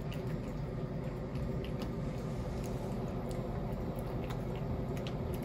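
A cat eating a treat from a small plate: scattered soft clicks of chewing and licking over a steady low hum.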